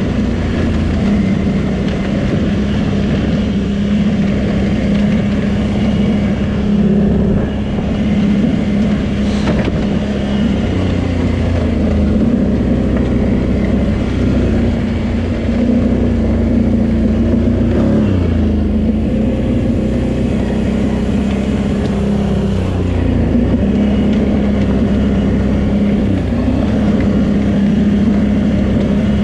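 Can-Am Renegade 800 quad's V-twin engine running at a steady pace on a stony dirt track, its pitch dipping and rising again several times as the throttle eases off and opens.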